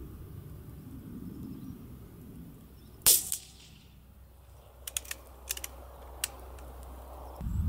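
A single shot from an Anschütz .22 LR bolt-action rifle about three seconds in, a sharp crack with a short ring after it. Some two seconds later comes a quick run of light metallic clicks as the bolt is worked to eject the case and chamber the next round.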